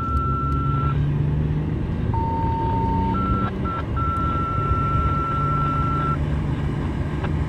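Road and engine noise of a moving car heard from inside the cabin. A thin, steady high tone sounds over it, drops to a lower pitch about two seconds in, returns to the higher pitch a second later and stops about six seconds in.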